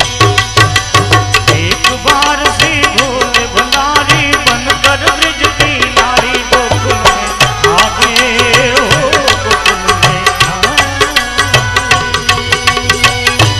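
Devotional bhajan music: a fast, steady hand-drum beat under a wavering melody line.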